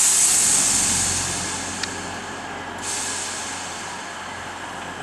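Northern Rail Class 322 electric multiple unit at the platform. A high hiss is loudest at the start and fades over the first two seconds, with a sharp click a little under two seconds in and a fresh hiss starting about three seconds in.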